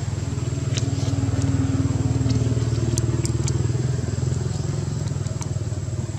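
A motor vehicle engine running steadily with a low drone, with a few faint scattered clicks over it.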